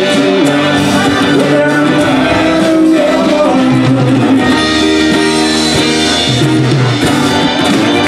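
Live band playing: saxophone over strummed acoustic guitar, electric bass, keyboard and drums.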